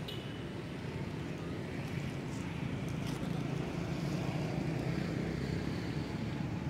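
Steady low rumble of a motor vehicle engine in road traffic, slowly growing louder.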